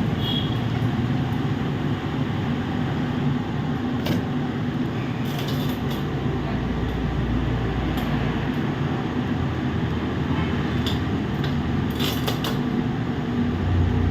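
Steady low room rumble and hum, with a few light ticks and taps scattered through it.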